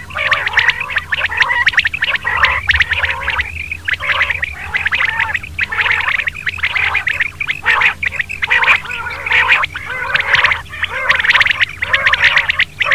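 Quail calls from a batair hunting-lure recording: short calls repeating rapidly and overlapping in a dense, unbroken run, over a faint steady hum.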